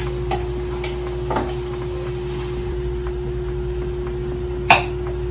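Kitchen cooking sounds over a steady low hum: utensils click against a pot a few times early on, then a single sharp click near the end as a jar of Alfredo sauce is opened.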